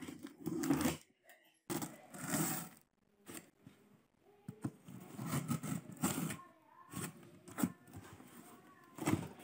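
Utility knife cutting through packing tape on a cardboard shipping box, in a series of short scraping strokes.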